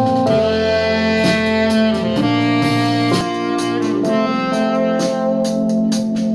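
Instrumental music played through a small portable Bluetooth speaker: held melody notes that change every second or so over a steady beat.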